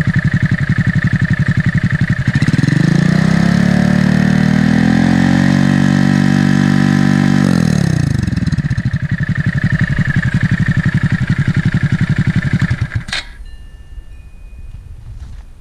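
Honda Grom's single-cylinder engine through a short aftermarket "shorty" exhaust, idling with a fast, even pulse. It is revved up about two seconds in and held high for several seconds, then drops quickly back to idle. The engine sound stops abruptly about thirteen seconds in.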